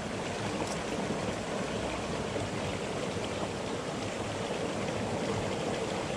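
Steady rush of flowing water from a stream.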